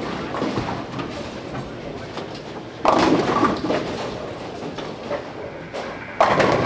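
Bowling alley sound: balls rolling down the lanes and pins crashing, with two loud crashes of pins, about three seconds in and again near the end.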